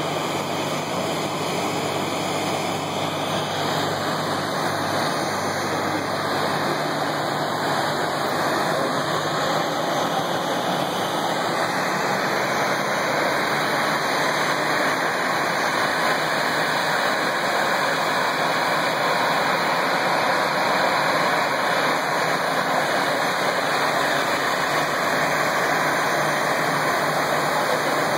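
Airbus A320 jet engines running as the airliner taxis: a steady roar that grows slightly louder over the stretch.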